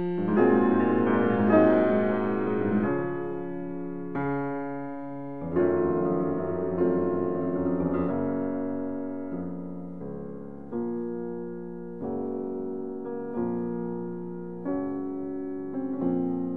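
Background music: slow, gentle notes, each struck and then fading away.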